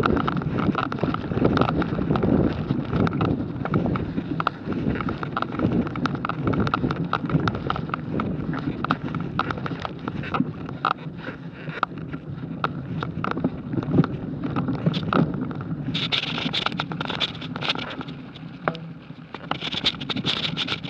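Mountain bike riding over a dirt trail covered in dry leaves: tyres rolling and crackling through the leaves and the bike rattling with constant small clicks, with wind on the microphone.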